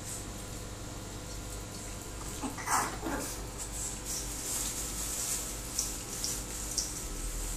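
Small dogs moving about on a tiled floor: scattered light clicks and scuffles, with one short louder noise about three seconds in, over a low steady hum.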